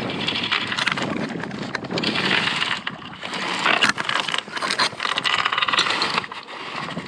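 Rushing, splashing water at the bow of a sailboat under way, mixed with wind on the microphone, with a few sharp clicks.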